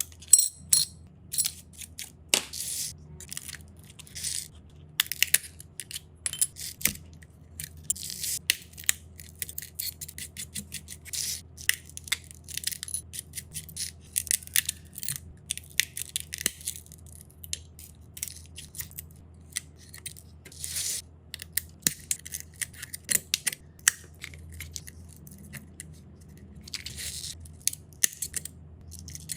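Irregular scraping, clicking and crackling of a small hand tool working cracked glass on the back of a phone, over a steady low hum.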